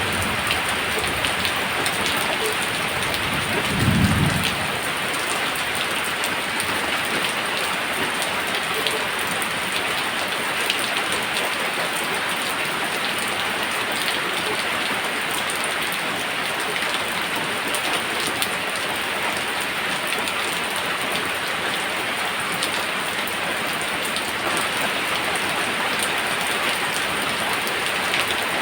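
Steady rain falling, an even hiss throughout. About four seconds in comes one short, low thunder rumble.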